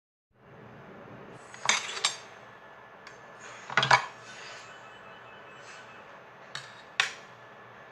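Kitchenware being handled: a few sharp clinks and clatters, like dishes and utensils knocked together or set down, over a faint steady hiss. The loudest clatter comes about halfway through.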